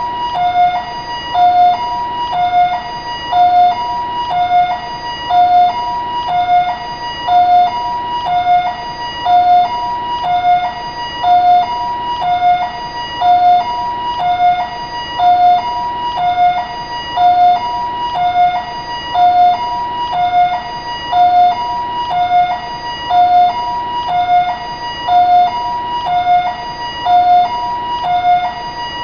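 Taiwanese ambulance siren sounding a two-tone hi-lo wail, a higher and a lower tone taking turns about every half second in an unbroken, even cycle.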